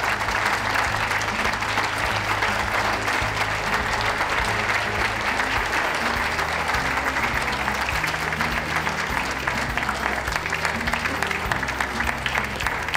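Audience applauding steadily, with music playing underneath.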